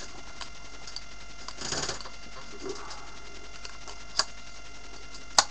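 A compact digital camera being handled close to the microphone: a short rustle, then two sharp clicks near the end, over a steady faint hiss.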